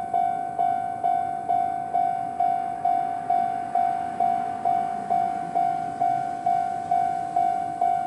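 Japanese railway level-crossing alarm, the old standard electronic bell tone, striking about twice a second. Each strike is a single ringing tone that fades before the next. It signals that the barriers are down for an approaching train.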